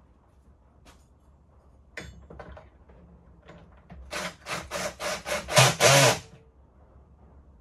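A sharp knock, then a quick run of about seven scraping strokes on the wooden panels of a flat-pack cabinet, growing louder toward the end.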